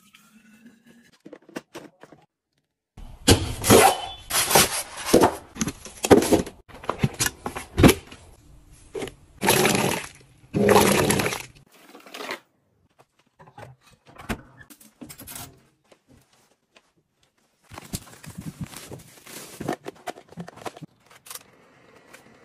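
Cardboard box and its packaging being handled and opened: a run of loud scraping, tearing and rustling bursts, then quieter, scattered handling noises later on.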